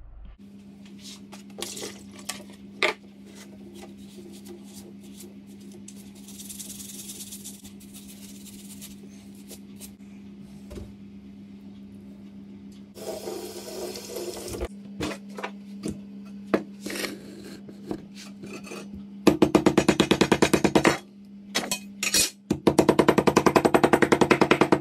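Ormer being prepared by hand: soft rubbing and handling with a brief run of tap water, over a steady low hum. About three-quarters of the way in comes the loudest part, a fast, even run of thuds as a meat tenderiser mallet beats the ormer wrapped in a tea towel on a wooden board, tenderising the meat before cooking; the thuds pause briefly and then resume.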